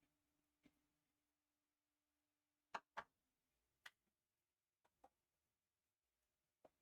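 Near silence broken by about eight faint, short clicks at uneven intervals, the loudest a close pair a little under three seconds in.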